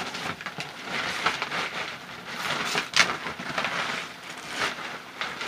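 Clear plastic protective bag crinkling and rustling as it is gripped and pulled off a computer monitor, with a sharp, loud crackle about three seconds in.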